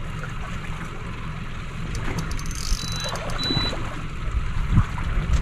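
Water washing and trickling against the hull of a small boat on choppy sea, with two short high beeps about three seconds in and a couple of low thumps near the end.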